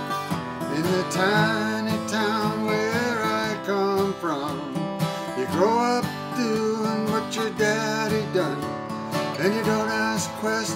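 A steel-string acoustic guitar strummed in chords, with a man singing over it.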